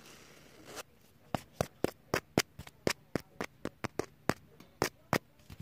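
A quick, slightly uneven run of sharp taps, about four a second, starting a little over a second in, after a soft hiss.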